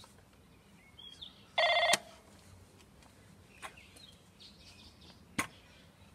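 Gate intercom call panel sounding once after its button is pressed: a short electronic buzz, about a third of a second long, about a second and a half in, ending in a click. A single sharp click comes near the end.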